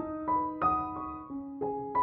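Gentle background piano music, single notes struck two or three times a second over held, fading chords.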